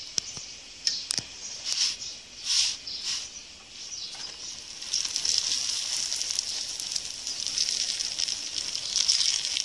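Onion-filled flatbread frying in fat on a hot pan: sizzling with a few short flares in the first few seconds, then steady, louder sizzling with fine crackles from about five seconds in.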